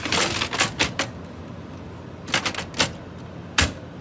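Irregular sharp taps and clicks: a dense cluster in the first second, then a few spaced single taps.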